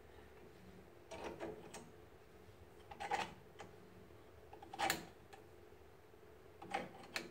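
A handful of irregular clicks and knocks from a large C-clamp's screw and handle being turned a little at a time. The clamp is pressing a twin-piston rear brake caliper's pistons back into their bores, forcing brake fluid back up toward the master cylinder. The loudest knock comes about five seconds in.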